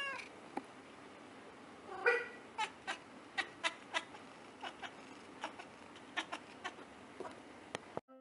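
Siamese cat meowing: the tail of one call right at the start and a short meow about two seconds in. After it comes a run of irregular sharp clicks, two or three a second, for about five seconds.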